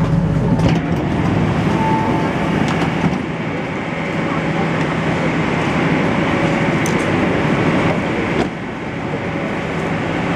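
Inside an MTR C-Train stopped at a platform with its doors open: a steady hubbub of the station and carriage, with passengers moving and talking and a few sharp clicks. A low hum drops away about a second in.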